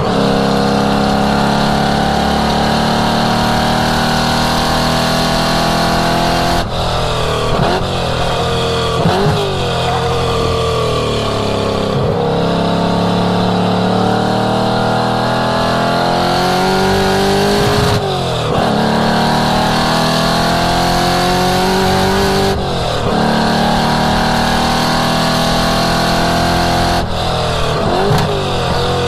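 1967 Ford Mustang race car's engine running hard at speed on track, its pitch climbing slowly under full throttle and then falling sharply about five times as the throttle is lifted, with quick rises and falls in revs after several of the lifts that sound like throttle blips on downshifts.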